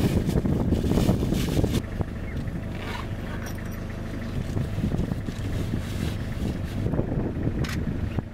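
An engine running steadily, with wind rushing on the microphone, loudest in the first two seconds.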